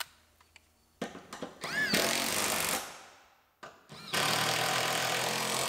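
Cordless impact driver running a seat-mounting bolt down in two runs: a short burst about a second in that spins up in pitch, then a longer steady run from about four seconds in. A small click at the very start as the socket goes onto the tool.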